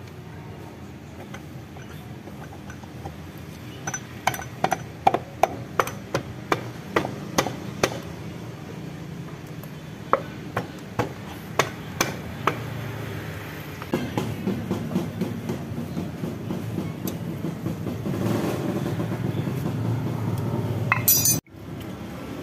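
A hammer tapping on metal parts of a Yamaha Mio M3's final-drive gearbox during reassembly: a run of sharp metallic taps, about two a second. It is followed by a stretch of quicker, lighter clicking and rattling.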